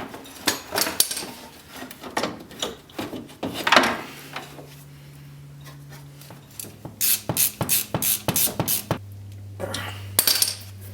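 Rubbing, scraping and a quick run of clicks and knocks as a rubber boot is worked over a winch by hand, with parts and tools handled. A faint low hum sits under it for a couple of seconds in the middle and again near the end.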